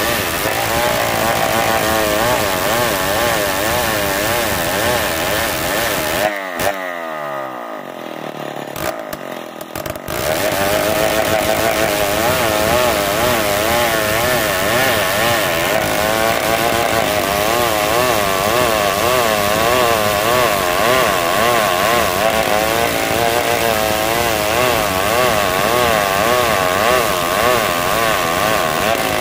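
Old chainsaw ripping a hard marsawa batu log lengthwise, the engine running under load with its pitch wavering up and down. About six seconds in it drops quieter and lower for a few seconds, then picks back up.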